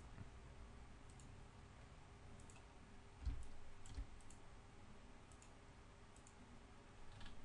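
Faint computer mouse clicks, scattered and irregular, over near-silent room tone, with a soft low thump about three seconds in.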